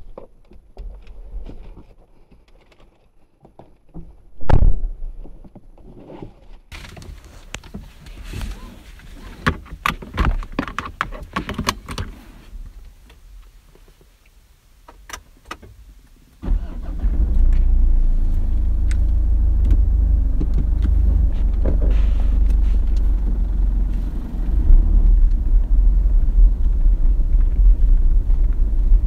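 Handling noises in the cabin, clicks and key jangles, with a loud thump about four and a half seconds in. About halfway through, the Mitsubishi Montero Sport's 2.5-litre four-cylinder common-rail turbodiesel starts with a sudden low rumble and settles into a steady idle, heard from inside the cabin. It grows louder near the end as the vehicle moves off.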